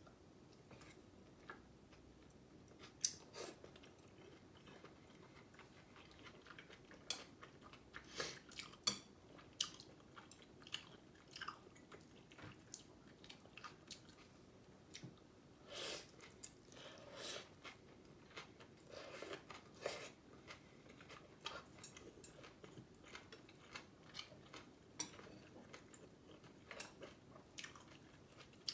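Quiet chewing of noodle soup, with scattered light clicks of metal chopsticks against a glass bowl.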